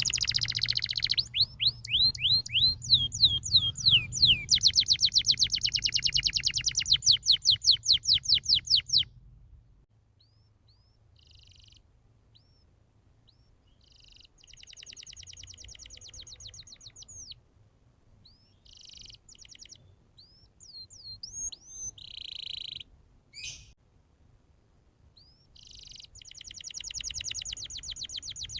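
Domestic canary singing: fast trills of rapidly repeated chirps, loud for about the first nine seconds, then softer scattered phrases and short trills, with rolling trills building again near the end.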